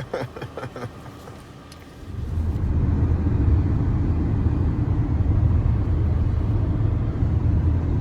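Steady low road and engine rumble heard from inside a moving car's cabin, starting suddenly about two seconds in.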